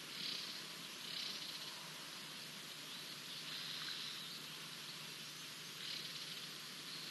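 Outdoor bush ambience: a steady hiss with soft, high-pitched calls that recur every second or two.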